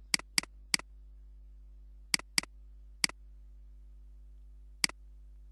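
Computer mouse button clicking seven times: three quick clicks, then a close pair, then two single clicks. A low steady hum runs underneath.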